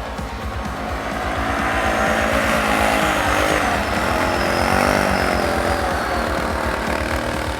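Can-Am Outlander ATV on tracks driving past through deep snow, its engine growing louder to a peak midway and then fading as it moves off.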